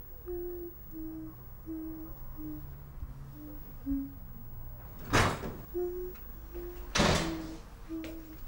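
A woman humming a slow tune in short, even notes. About five seconds in, two loud bangs come nearly two seconds apart, and the humming carries on between and after them.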